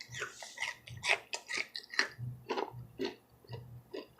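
Close-mic chewing and lip-smacking: a run of short, irregular smacks and clicks of a mouth eating.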